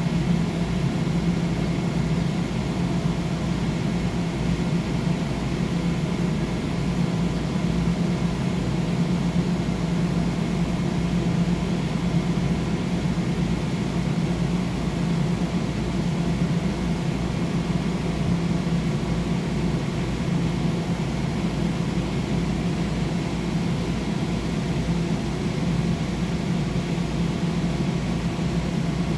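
Bombardier M7A electric multiple-unit train standing at a platform, its onboard ventilation and electrical equipment running with a steady low hum and rush of air, with faint steady whines above it.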